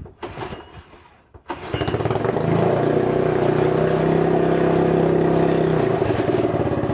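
Honda BF2DH 2 hp four-stroke outboard motor starting up: after a second and a half of quieter rattling it catches and runs steadily and loudly.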